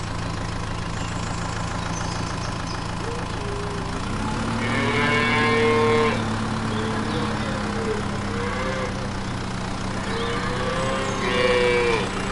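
Cattle mooing over a steady engine idle. Two long moos stand out, one about five seconds in and one near the end, with shorter calls between them.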